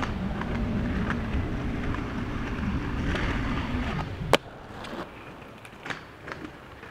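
Inline skate wheels rolling, a steady rumble with a low hum that stops about four seconds in, followed by a sharp click and a few lighter clicks.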